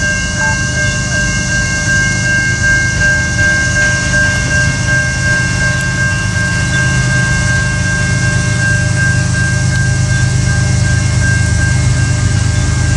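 An oncoming freight train is heard from a distance: a low rumble that builds toward the end, under a steady high ringing tone that holds unbroken throughout.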